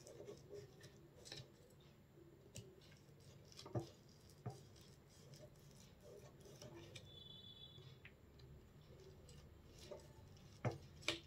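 Faint scraping of a table knife drawn through soft, warm coconut barfi in a steel pan to score it into pieces, with a few light clicks, the clearest about four seconds in and twice near the end.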